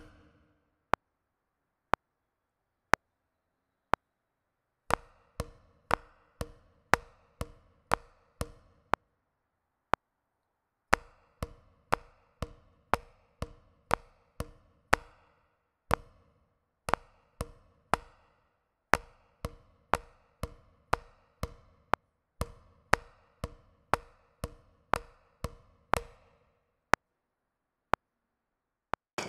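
Wooden drumsticks tapping a rubber practice pad, reading out a rhythm of quarter and eighth notes broken by rests, over a metronome clicking once a second. Only the clicks sound for the first five seconds, for a bar around the tenth second and again near the end.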